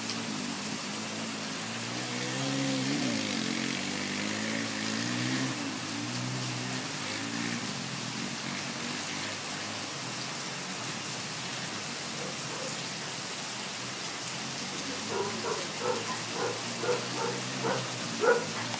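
Distant ATV engine revving up and down over steady heavy rain; the engine fades after about eight seconds, leaving the rain. Near the end, a quick run of short sharp sounds, about four a second.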